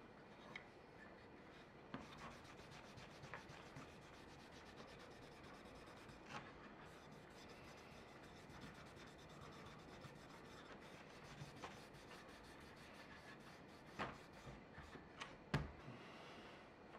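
Faint rubbing of a cloth rag over a wooden handsaw handle, wiping on wood stain in quick back-and-forth strokes. A couple of light knocks near the end as the handle is set down on the table.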